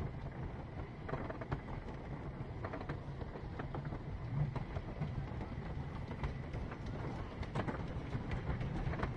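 Wooden roller coaster train rolling slowly along its track, a steady low rumble with scattered clicks and clacks from the wheels on the wooden rails, the clicks coming more often near the end.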